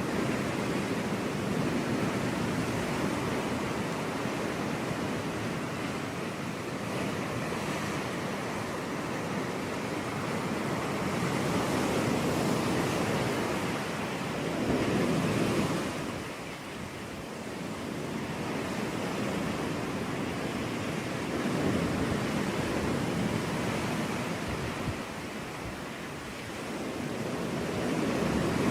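Ocean waves breaking and washing onto a beach, a steady surf hiss that swells and eases every several seconds as each wave comes in.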